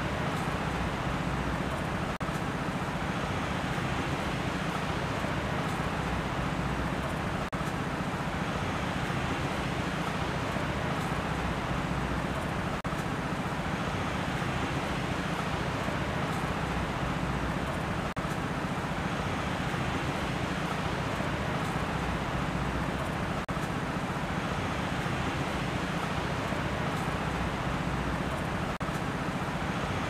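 Steady rushing background noise: an even hiss with a low rumble underneath, dipping briefly about every five seconds.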